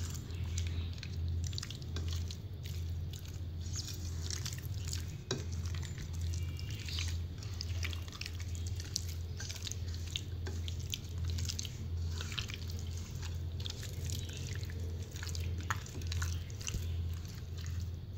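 Wet squelching and small irregular smacks of a hand working a thick spice-and-cream marinade into raw chicken pieces on a plate, with a low steady hum underneath.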